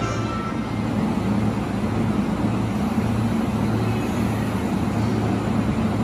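JR East E233-series electric train standing at the platform, its onboard equipment giving a steady low hum.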